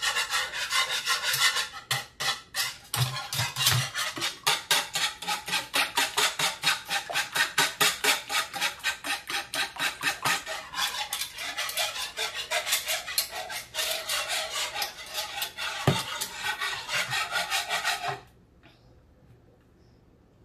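Wire whisk beating raw eggs in a ceramic bowl, its wires scraping the bowl in rapid, regular strokes. The whisking stops about two seconds before the end.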